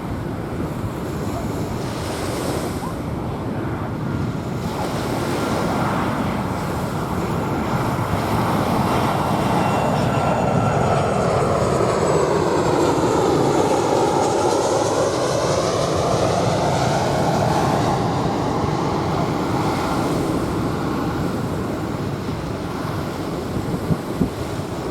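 Jet airliner passing low overhead, its engine noise swelling to a peak about halfway through and then fading, with a phasing sweep as it goes over. Waves washing on the sand and wind on the microphone run underneath.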